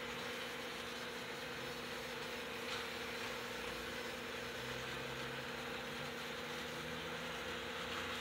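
Two small electric model trains running around loops of track, giving a steady whirring hum from their motors and wheels on the rails.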